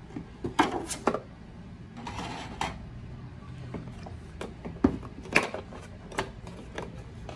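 Packaging handling sounds: a clear plastic sleeve is slid off a cardboard box with a brief scraping rustle about two seconds in. This is followed by a few sharp clicks and taps as fingers handle the plastic headphones in the box.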